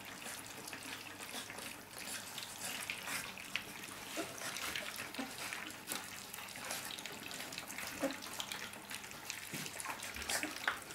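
A litter of three-week-old puppies lapping and slurping soft food from a shared shallow dish: a busy, wet smacking and clicking from many small mouths at once, their first solid food.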